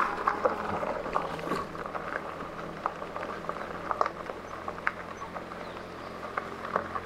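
E-bike tyres rolling over a gravel road, with many small crackles and pops of stones under the tread, over a steady low hum of the electric motor.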